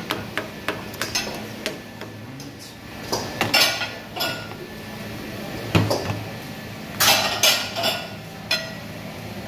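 Plates, pans and utensils clinking and clattering in a busy restaurant kitchen: irregular sharp knocks, several ringing briefly, bunched about three seconds in and again about seven seconds in, over a steady low hum.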